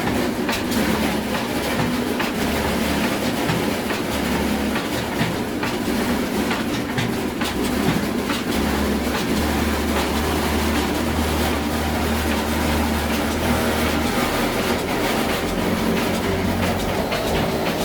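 Old black diesel engine running and driving an atta chakki flour mill: a steady low rumble overlaid with a continuous rattling clatter of the machinery.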